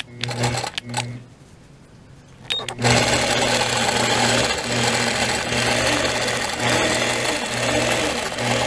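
Longarm quilting machine stitching, a few short bursts of stitches near the start. After a couple of seconds of quiet it runs steadily as a wavy line is stitched along a ruler, its hum dipping briefly about once a second.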